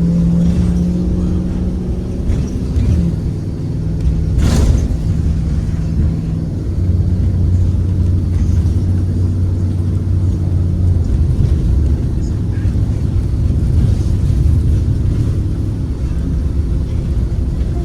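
Ride aboard a 2023 Blue Bird Vision school bus: its Ford 7.3L gasoline V8 running under way with a steady drone, the engine note dropping lower about seven seconds in. A sharp knock or rattle about four and a half seconds in.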